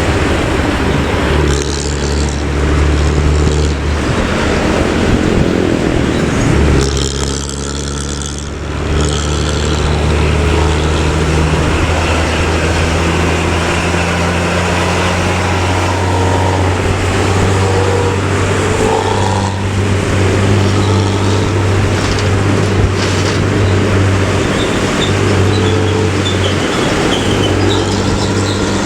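Diesel bus engine running at road speed with a low, steady drone; about seven seconds in the note drops briefly and then picks up again.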